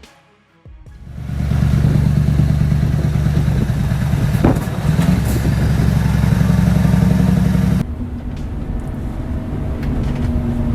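Heavy engine running loud and steady, starting about a second in, with an abrupt change in its sound near the end as the footage cuts to another clip.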